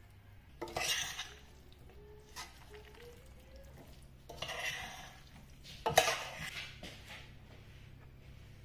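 A spoon stirring pasta and sauce in a stainless steel pot, in two bursts of wet scraping and mixing about a second in and around four and a half seconds in. A sharp metal clank against the pot at about six seconds is the loudest sound.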